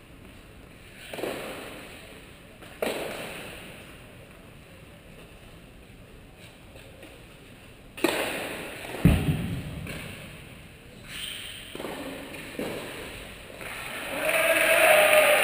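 A few sharp tennis racket hits on the ball, ringing out in the echoing indoor hall, spaced a second or more apart, with one heavy low thud the loudest of them. Near the end a longer stretch of louder noise with a voice in it.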